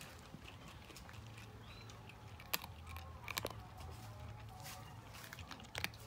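A cat crunching dry kibble: a run of small, crisp crunches and clicks, the sharpest about two and a half, three and a half and six seconds in.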